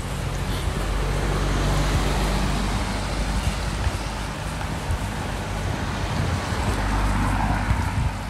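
A motor vehicle's engine running close by, a steady low hum over road noise.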